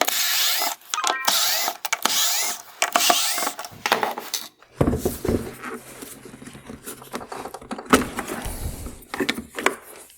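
A small power screwdriver backing out the T20 Torx screws that hold the control unit in the headlight housing, whirring in three short runs with a rising whine. Then come scattered clicks and knocks of plastic parts being handled.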